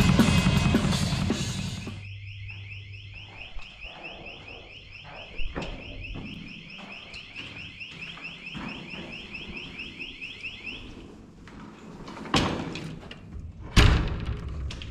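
Drum kit and band playing loud, cutting off about two seconds in; then an electronic alarm sounding, a rapid run of rising chirps that goes on for about nine seconds and stops. Near the end come two sharp knocks of a door handle and door.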